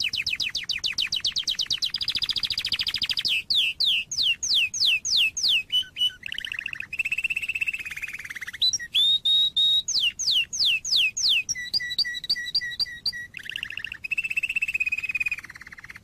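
Domestic canary singing a continuous, loud song made of phrases: a very rapid trill, buzzy rolls, a run of downward-sliding whistles at about four a second, and fast repeated two-pitch chips, each phrase held a second or two before the next begins.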